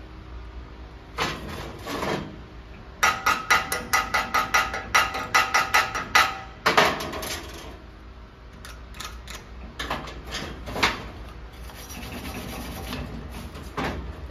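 Slag being cleaned off a steel weld test coupon with hand tools. About three seconds of rapid ringing metal strikes come at about five a second, with scrubbing brush strokes before and after and a few scattered strokes later.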